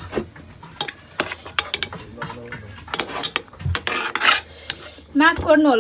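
Metal spoon clinking and scraping against a perforated metal momo steamer tray as steamed dumplings are lifted off it: scattered clicks and short scrapes. A voice starts near the end.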